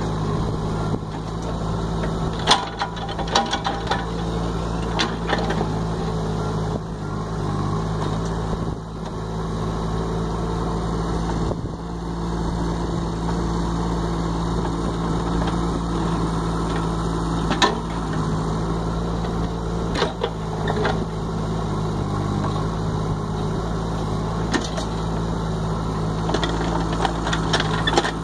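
A small engine running steadily at an even speed, with scattered sharp knocks and clicks over it.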